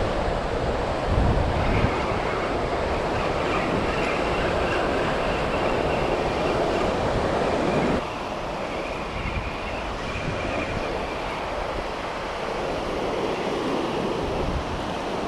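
Surf washing onto the beach with wind buffeting the microphone, a steady rushing noise that drops abruptly about eight seconds in, with a faint thin whine running through the first part.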